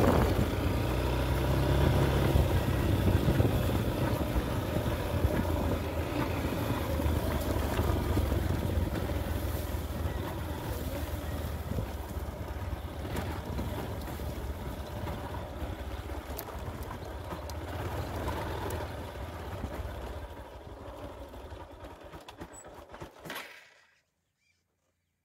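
Small motorcycle engine running as it is ridden over rough pasture, with wind buffeting the microphone. It grows weaker near the end and then cuts off abruptly.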